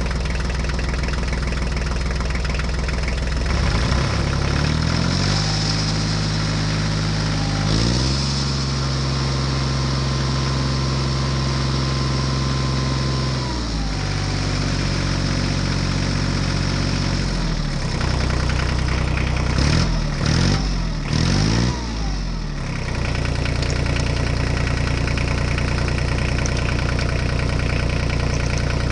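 A tractor engine running, its pitch stepping up and down several times as if revved and eased off, with a few quick rises and falls about two-thirds of the way through before it settles into a steady run.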